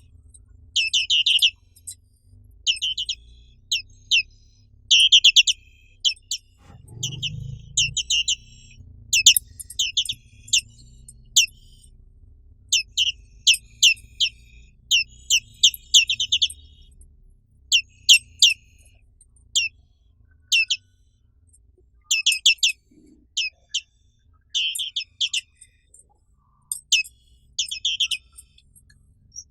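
Black-capped white-eye (Zosterops atricapilla) singing: short phrases of rapid, high, sweeping chirps, repeated every second or two.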